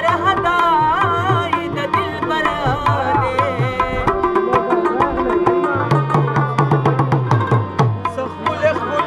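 Pashto folk ensemble playing: tabla strokes in a quick rhythm under harmonium and rubab. A voice sings wavering phrases in the first couple of seconds, and the instruments carry on alone after that.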